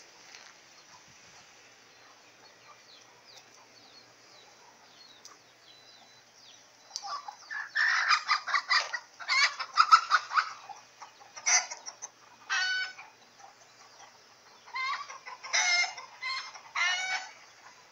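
Chickens, roosters among them, clucking and squawking in a run of loud calls in short bursts from about seven seconds in, after a quieter stretch with only faint chirps.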